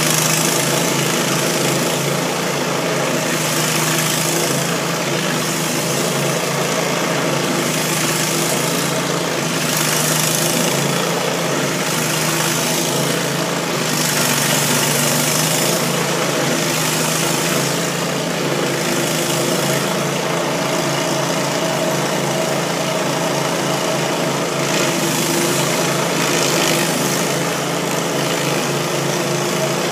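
Stump grinder's engine running steadily under load while its cutter wheel grinds a stump, with a higher hiss of cutting that swells and fades every couple of seconds.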